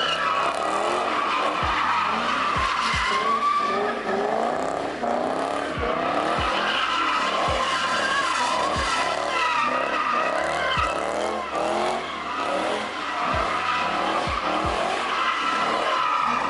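Car drifting in circles: tires squealing continuously while the engine revs up and down over and over under throttle.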